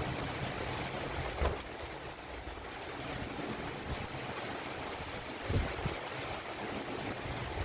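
Storm wind and a steady rush of rough sea surf, with gusts buffeting the microphone twice.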